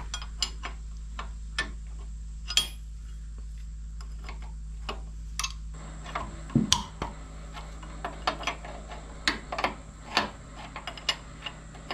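Irregular metallic clicks and clinks of a wrench working on a motorcycle's handlebar riser bolts, over a steady low hum.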